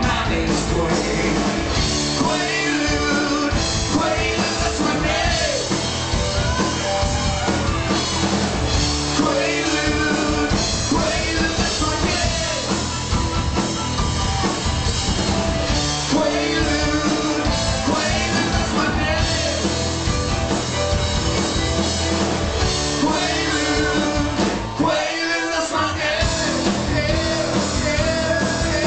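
Live rock band playing an original song: two male voices singing over electric guitar, bass and drum kit, with keyboard. The low end drops out for a moment near the end before the full band comes back in.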